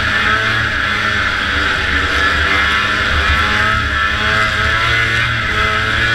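Vintage snowmobile's two-stroke engine running hard at speed, its pitch wavering slightly, under a steady loud rushing noise.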